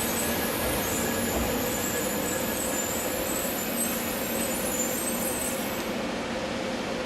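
Train running past: a steady rush of wheel and rail noise with faint high whining, the high hiss falling away about six seconds in.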